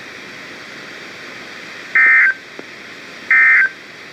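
NOAA Weather Radio SAME digital data bursts: after about two seconds of faint radio hiss, two short, loud, buzzy bursts a little over a second apart. They are the end-of-message code that closes a severe thunderstorm warning.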